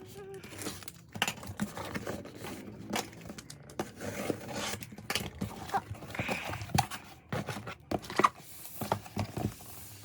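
Unboxing handling noises: plastic and paper packaging crinkling and tearing, with many small sharp clicks and taps throughout.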